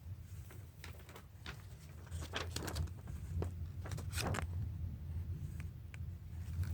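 Pencil scratching on paper in short, irregular strokes, busiest in the middle, as a cat's ears are sketched, over a steady low hum.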